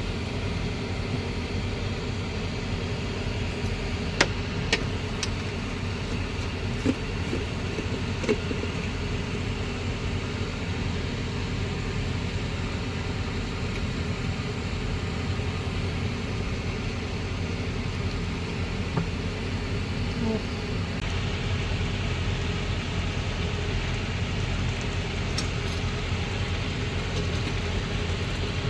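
A steady low hum runs throughout, with a few sharp clicks and taps scattered over it.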